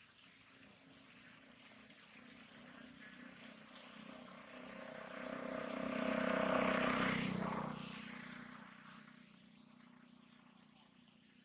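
A propeller aircraft passing over. Its engine drone swells slowly to a peak about six to seven seconds in, then fades, over the steady hiss of rain.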